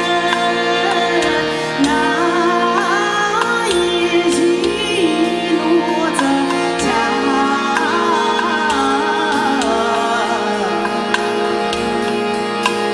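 Live world-music ensemble playing: a wavering, ornamented melody over a steady drone, with a hand drum struck in a regular pulse and sharp clicks of hand strokes.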